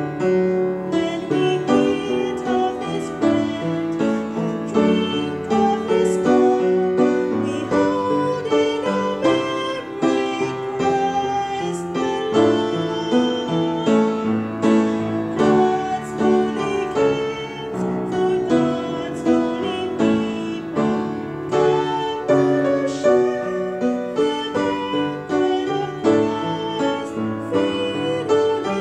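Piano playing a hymn accompaniment, a steady run of chords and melody notes.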